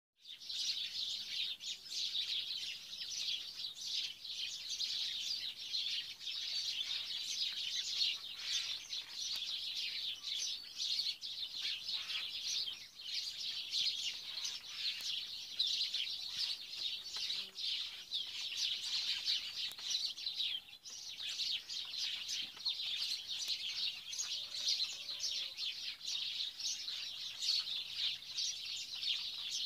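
A dense, continuous chorus of many small birds chirping, made of rapid overlapping chirps, with a brief dip about 21 seconds in.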